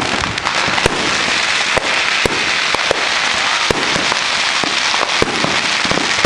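Fireworks going off all around at once: a dense, unbroken crackle with louder sharp bangs at irregular intervals, about one or two a second.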